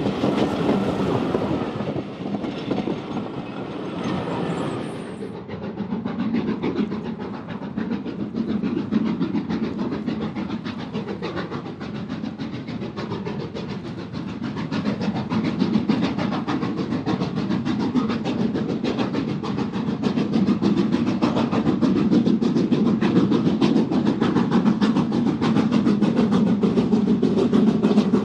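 Steam locomotive working a train, with a fast, even beat of exhaust and wheels on the rails that grows louder through the second half. A high hiss of steam dies away about five seconds in.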